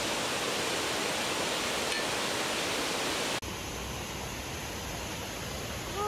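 Steady rushing noise of a mountain valley stream. About three and a half seconds in it cuts off for an instant and carries on slightly quieter and duller.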